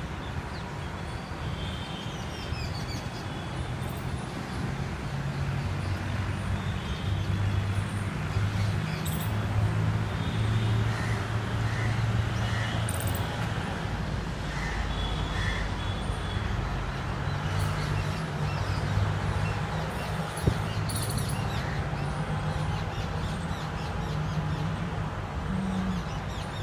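Birds chirping and whistling on and off over a steady low rumble.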